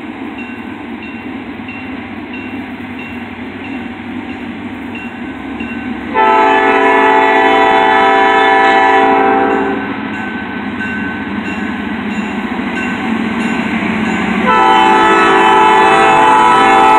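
A diesel freight locomotive approaching a grade crossing sounds two long horn blasts, the first about six seconds in and lasting some three and a half seconds, the second starting near the end, over the rumble of the oncoming train. A crossing bell dings steadily underneath.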